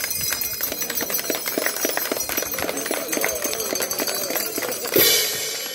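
Rapid, even clatter of dancers' stamping steps on a concrete plaza mixed with small bells jingling, then one loud sharp crack about five seconds in.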